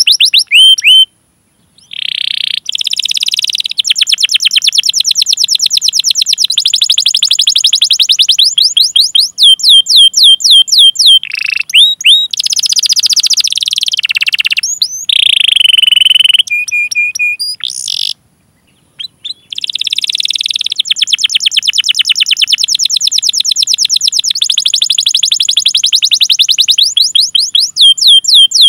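Domestic canary singing long rolling trills: fast runs of repeated high chirps and sweeping notes, with a brief pause twice.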